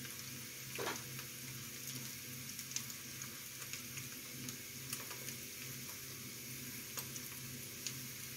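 Egg and wild asparagus frying in a pan, a soft steady sizzle with a few faint ticks.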